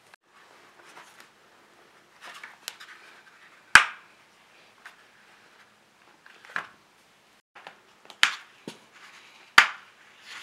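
Curved hard plastic track sections of a Catit Design Senses Circuit cat toy being fitted and snapped together by hand: several sharp clicks a second or two apart, with soft handling rustles between.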